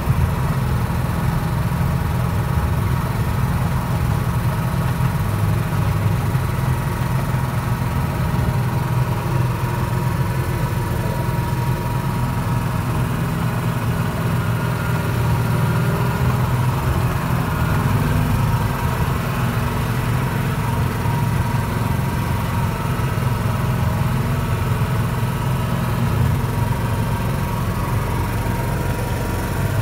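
Petrol engine of a 2-6-2 petrol-hydraulic miniature railway locomotive, running steadily while it pulls the train. Heard close up from the driving cab.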